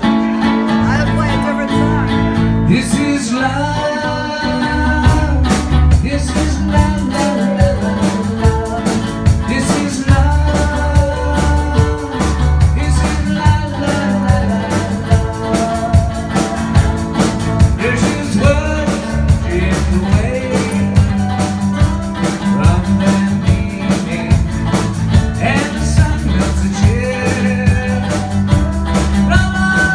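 Live band playing a song together at a sound check: a singing voice over guitar, bass and a steady drum beat.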